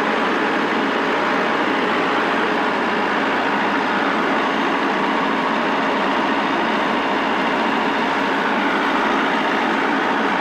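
Farm tractor engine running at a steady speed, heard from on the machine.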